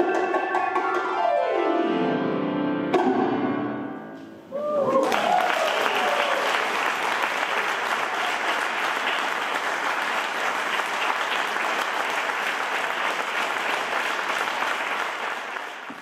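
Grand piano with bongos ends a piece: the piano sweeps down in a fast descending run to a final struck chord about three seconds in, which rings out and fades. Then the audience applauds steadily, with a brief shout as the clapping starts.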